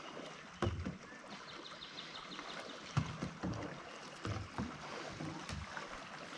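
A small boat passing close by on the water, with irregular low knocks and splashes from the hull or paddles. A short run of quick high ticks comes about a second and a half in.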